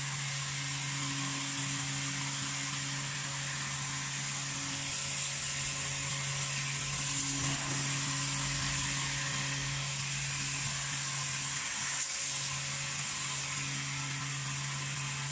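Electric high-pressure washer running steadily, its motor hum under a constant hiss of water spray, as it cleans a dismantled air conditioner's parts.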